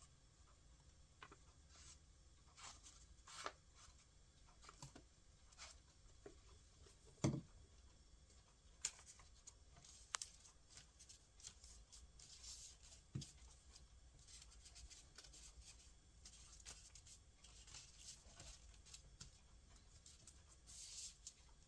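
Faint rustling and light taps of paper cut-outs being handled and pressed onto a paper plate, with a few sharper clicks.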